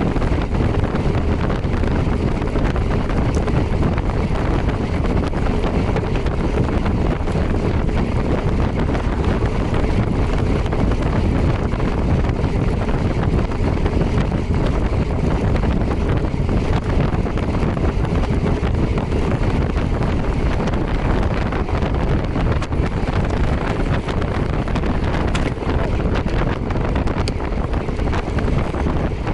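Steady rush of wind on the microphone while riding at speed, with no breaks.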